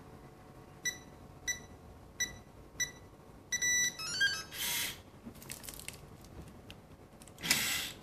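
Smart door lock's touch keypad beeping four times as digits are pressed, then a longer tone and a short run of chime notes as the code is entered. This is followed by a short burst of mechanical noise from the lock, and near the end a louder rattling clack as the lever handle is worked.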